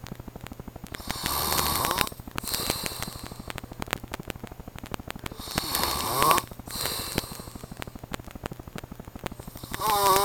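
A sleeping man snoring loudly: three heavy snores about four seconds apart, each followed by a softer one. The last, near the end, turns into a short wavering, pitched snort.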